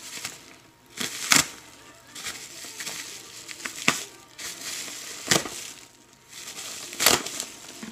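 Bubble wrap crinkling and rustling as it is cut open with a folding knife and handled, with a few sharper crackles every second or two.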